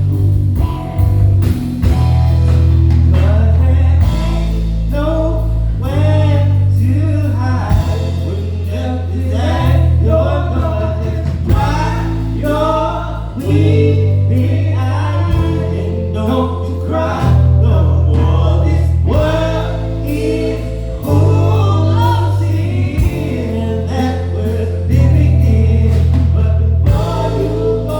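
Live band playing a song: bass guitar notes that change every couple of seconds and a drum kit, with a bending melodic lead line over them.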